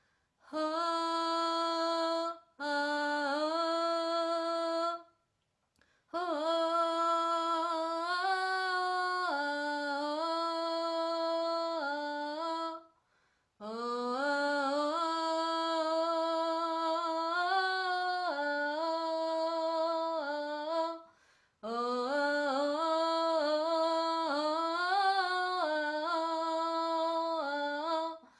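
A woman's voice singing wordless, vowel-like toning in long held notes, stepping and gliding between a few pitches, in five phrases broken by short pauses for breath.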